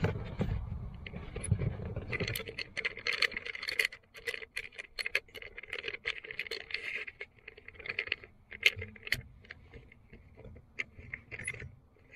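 Clicks, rattles and scrapes of wire and car interior trim being handled as the wire is fished through behind the seats. The rattling is busiest a couple of seconds in, then thins to scattered clicks.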